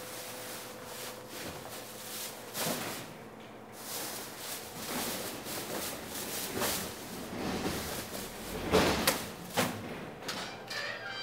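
Plastic trash bags rustling and landing with thuds as they are hauled and tossed into a trash compactor bin, with two louder thumps about nine seconds in.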